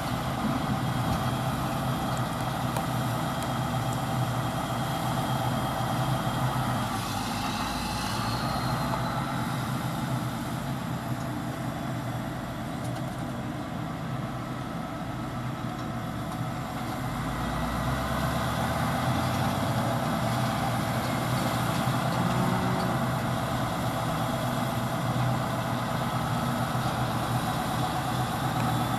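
Heavy farm machinery, a forage harvester and tractors, running steadily during grass silage chopping. A faint high whine rises and falls about a quarter of the way in. The drone eases off a little in the middle and swells again.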